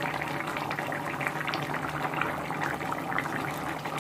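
Thick curry gravy bubbling at a boil in a pan, a steady crackle of many small bubbles popping.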